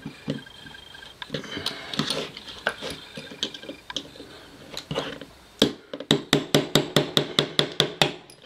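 Hammer tapping an old screwdriver wedged into the soldered seam of a metal module cover to break the solder joint: scraping and scattered clicks at first, then a quick even run of about a dozen sharp metal taps, some five a second, in the second half.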